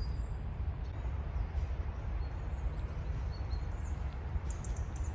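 Park ambience: a steady low rumble with a few faint, short, high bird chirps, most of them near the end.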